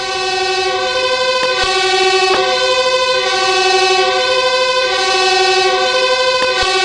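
Fire engine siren sounding continuously, a loud pitched wail that seems to alternate between two tones and grows slightly louder.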